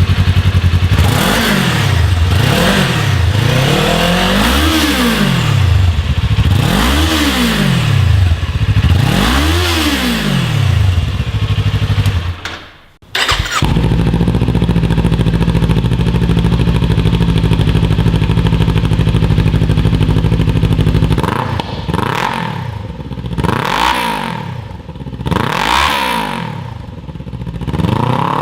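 Kawasaki Ninja 400's parallel-twin engine idling and blipped through a series of quick revs, each climbing and falling back to idle. About halfway the sound cuts out briefly, then the engine idles steadily before another run of shorter revs.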